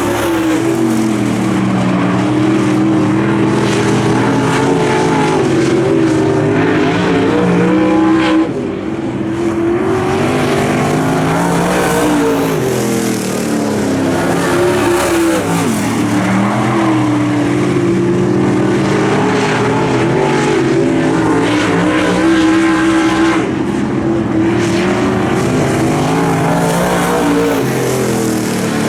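Dirt track race car engines running hot laps, the pitch dropping off into the turns and climbing again on the straights, several times over.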